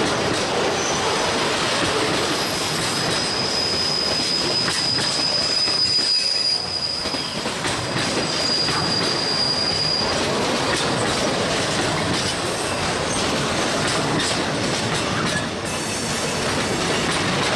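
Heavy train rolling past, its wheels knocking over bad rail joints amid a steady rumble, with a thin high wheel squeal held for several seconds in the first half.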